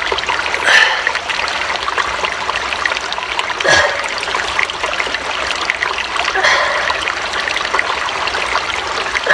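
Running water trickling and splashing steadily, with a few brief louder swells: about a second in, near the middle, and about two-thirds through.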